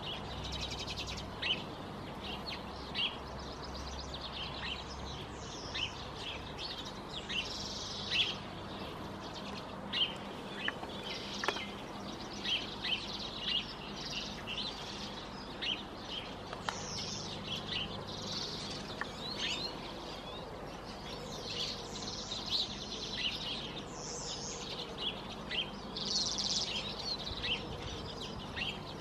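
Small finches, redpolls and siskins, twittering at a seed feeder: many short high chirps with patches of rapid chattering calls.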